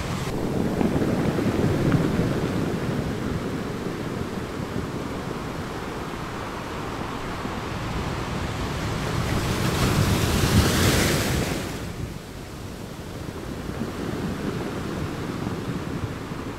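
Sea waves crashing and washing against rocky cliffs: a continuous surf wash with a bigger breaker about two seconds in and a louder, hissier surge about ten seconds in that dies back soon after.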